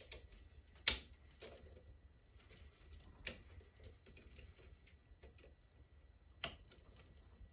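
Small, sparse clicks and taps of a punch and spring against a polymer buttstock and rifle lower receiver as a spring is worked into place, with three sharper clicks about a second, three seconds and six and a half seconds in.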